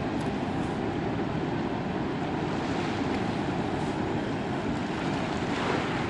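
Steady rush of fast-flowing, turbulent river water, with wind buffeting the microphone.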